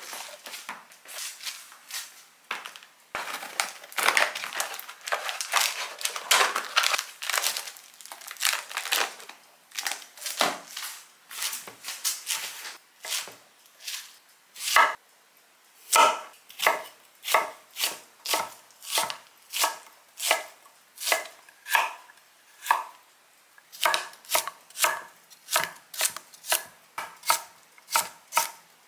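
Kitchen knife chopping vegetables on a cutting board: a fast, dense run of strokes, then separate, even strokes about two a second with a brief pause near the end.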